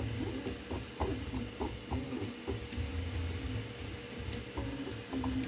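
Homemade 3D printer running a print: its stepper motors sing in tones that glide up and down in pitch as the print head and bed change direction every fraction of a second, over a low rumble from the moving bed and a steady fan tone.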